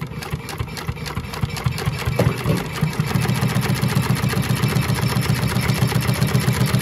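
Consew 339RB-4 two-needle walking-foot industrial sewing machine stitching through layered fabric. It makes a fast, even stitching rhythm that speeds up and grows louder over the first few seconds, then runs steadily.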